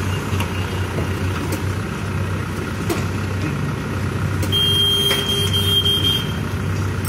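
Engine running steadily with a constant low drone. About halfway through, a high steady beep-like tone sounds for under two seconds.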